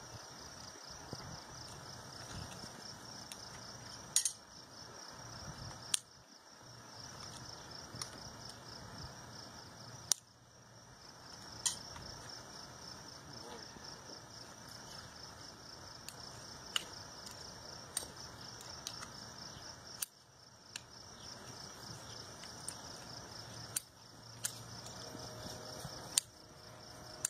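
Hoof nippers cutting through a horse's front hoof wall during a trim, a sharp snap every second or few, about a dozen in all. Insects trill steadily in the background.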